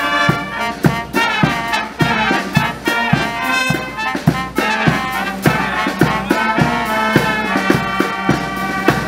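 Military brass band playing: trumpets and lower brass carry the tune over a bass drum struck about twice a second.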